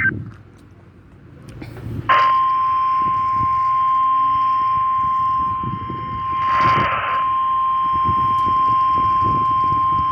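Weather radio sounding the 1050 Hz NOAA Weather Radio warning alarm tone during a Required Monthly Test: one steady, loud single-pitched tone that starts about two seconds in, just after the last data burst of the SAME header ends. A brief burst of noise cuts across it about halfway through.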